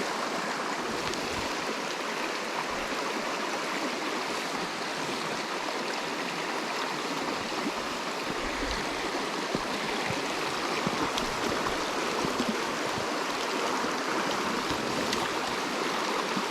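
A small, shallow creek running over rocks: a steady, even rush of flowing water.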